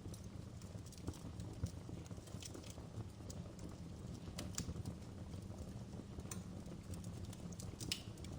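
Wood fire in a fireplace crackling: irregular sharp pops and snaps, several a second, over a steady low rumble of the burning fire.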